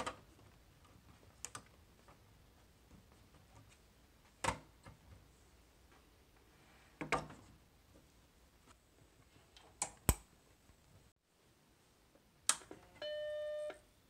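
Cable connectors being plugged into the back of a Macintosh Plus: a series of sharp clicks and knocks as the plugs seat. Near the end a single click is followed by the Macintosh Plus startup beep, a steady tone lasting under a second.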